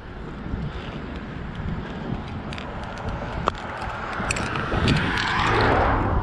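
A car passing on the street, its tyre and engine noise building to its loudest near the end, with a few light clicks on top.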